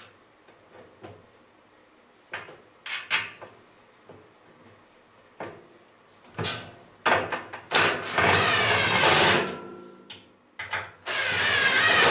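Cordless drill running in two runs of a second or two each, driving screws to fasten a plastic baffle to a clothes dryer's drum. Both runs come in the second half, after several clicks and knocks of handling.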